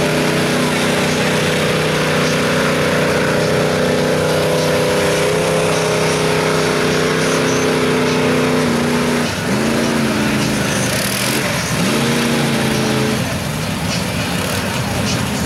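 Big-block Chevy V8 of a lifted mega mud truck running steadily as it churns through a mud hole. Its engine is then revved twice, rising in pitch each time, about nine and twelve seconds in, before easing off near the end.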